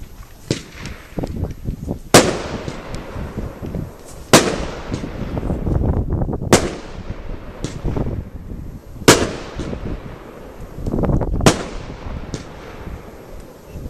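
Lesli Royal Class 'Lord Snow' 26 mm firework battery firing shot after shot: five loud bangs about two to two and a half seconds apart, each trailing off in an echo, with fainter pops and crackles between them.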